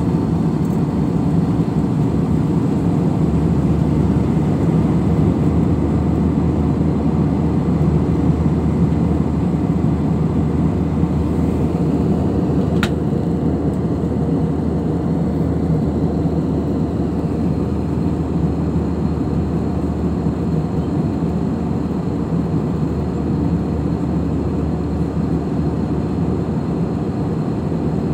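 Steady cabin noise of a jet airliner in flight, heard from a window seat: engine drone and rushing airflow. A deeper hum joins about three seconds in, and there is a single short click about halfway through.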